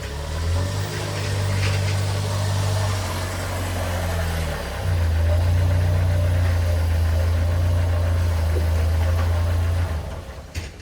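Pressure washer running with a steady low motor hum under a spray hiss. It steps louder and softer as the wand is worked, bends in pitch briefly just before the five-second mark, and shuts off about ten seconds in.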